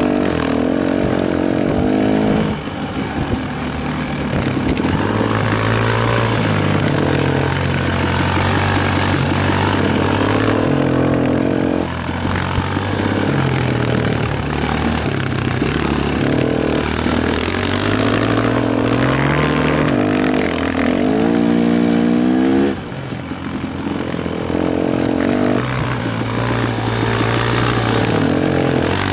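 Dirt bike engines running along a rough track, the pitch climbing and falling as the throttle is opened and closed. Sharp drops in engine sound come about two and a half seconds in, around twelve seconds in, and about three-quarters of the way through.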